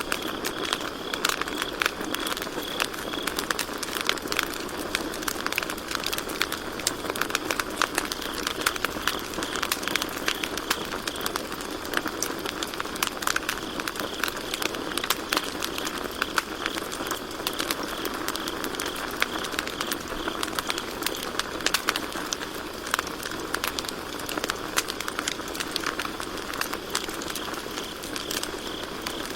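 Wood campfire crackling, with frequent sharp pops, over a steady chorus of crickets chirping.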